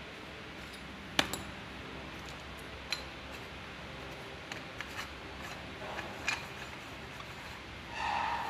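Iron plumbing pipes and fittings clinking and knocking as they are handled and screwed together: a sharp metal clack about a second in, a few lighter knocks later, and a short grating scrape near the end.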